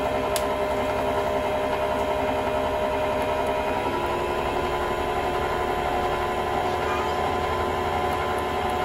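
Khind SM506P stand mixer's motor running with an empty bowl: a steady hum with several whining tones. About four seconds in, the tones shift as the speed dial is turned to another setting.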